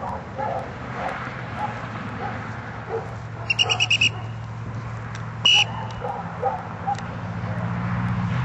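Dog-training whistle: a quick run of about six short pips, then a single short blast about a second and a half later. This is the usual retriever pattern of a recall trill followed by a sit blast. A low steady rumble runs underneath.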